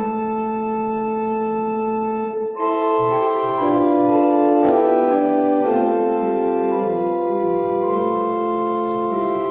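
Organ playing slow, sustained chords: one chord held for about two and a half seconds, then fuller chords with the notes moving.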